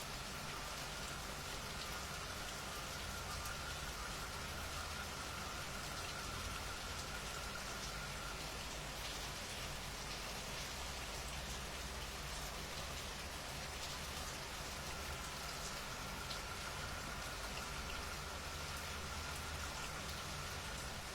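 Steady rain falling, with many small drops pattering on surfaces. A faint steady high tone sounds through the first several seconds and returns near the end.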